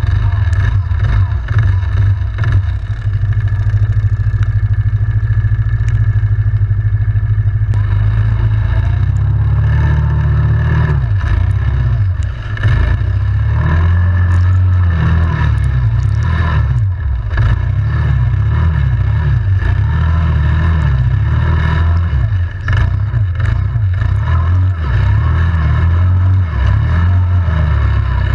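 ATV engine running at a steady speed, then from about eight seconds in revving up and down over and over as it is ridden, with scattered knocks and rattles.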